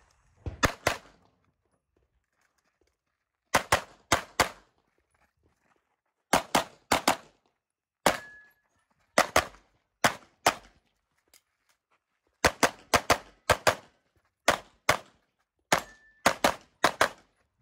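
Rapid pistol fire from a CZ Shadow 2 in a USPSA stage: shots come in quick pairs about a quarter second apart, two on each target, with pauses of one to two seconds as the shooter moves between positions.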